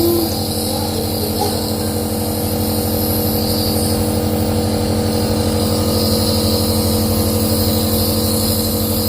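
Compressor nebulizer running steadily: a constant motor hum with a fast vibrating buzz and a hiss of air above it as the medicine is turned into mist.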